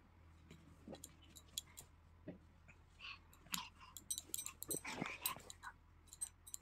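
Faint scattered clicks and rustling, with soft mouthing sounds from a baby handling a plastic packet and putting it to her mouth; the small noises cluster more densely in the second half.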